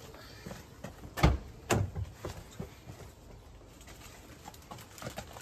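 Car door being unlatched and pulled open: two sharp clunks about half a second apart, then a few softer knocks as things are moved about inside the car.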